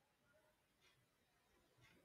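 Near silence: room tone, with two faint mouse clicks about a second apart.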